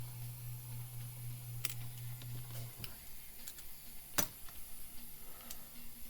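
Scattered small clicks and ticks of RC truck parts and hand tools being handled as a suspension link is put back on, the sharpest click about four seconds in.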